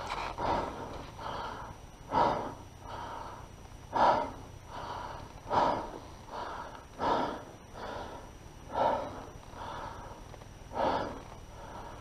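A person breathing hard, out of breath: a loud exhale about every second and a half with a softer inhale between.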